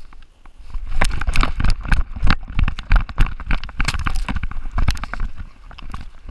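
Chocolate Labrador running, heard through a camera strapped to its back: a quick, irregular run of thuds and knocks from its paw falls and the jolting camera mount. It starts about a second in and eases off near the end.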